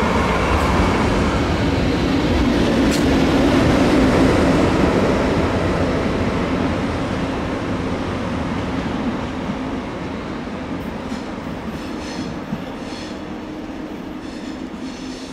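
A train rolling past and slowly fading away, with a row of wheel clicks over rail joints in the last few seconds.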